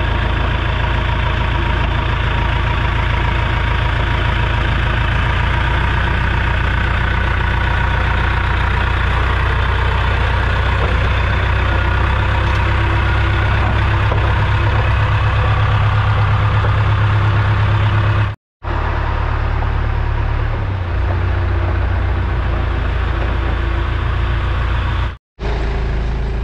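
Engine of a piece of heavy shop equipment running steadily. The sound cuts out completely for an instant twice in the last eight seconds.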